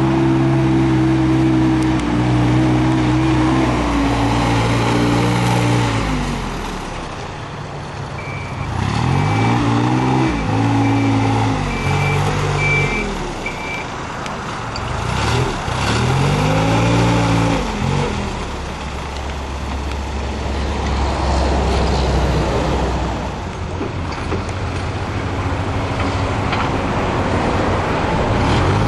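Perkins diesel engine of a 2006 Mast Explorer H20DL rough-terrain forklift running, its revs rising and falling several times as the machine is worked. A beeper sounds repeatedly from about 8 to 14 seconds in.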